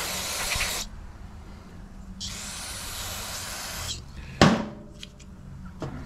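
Aerosol carb cleaner hissing from its can in two bursts: one that stops about a second in, and a longer one of nearly two seconds in the middle, flushing debris out of a small-engine carburetor's jets and float bowl. A single sharp knock follows, then a few light clicks.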